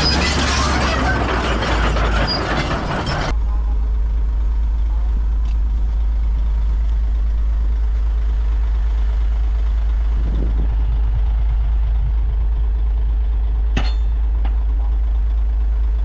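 Heavy earthmoving machinery's diesel engine running with a steady deep rumble. For the first three seconds a loud, dense clatter of rock and machinery rides over it, then cuts off suddenly.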